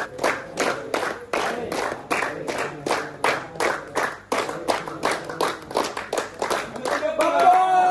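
A crowd clapping together in a steady rhythm, about three claps a second, with voices singing along. Near the end the voices rise into a loud group shout.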